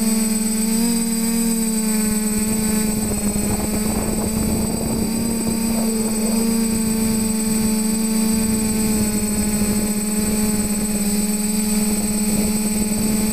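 TBS Discovery quadcopter's four brushless motors and propellers whining steadily in flight, heard close up, with a thin high tone over the top. The sound turns rougher and noisier for a few seconds from about three seconds in.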